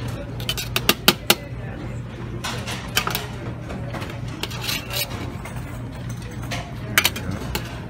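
Buffet restaurant din: sharp clinks and clatters of dishes and serving utensils on metal, a quick cluster about a second in and single ones near three and seven seconds, over a steady low hum and background chatter.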